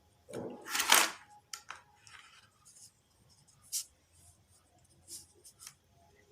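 Handling noise and small clicks as battery leads are plugged into a speaker's circuit board: a short, louder burst of rustling about a second in, then a few scattered sharp ticks.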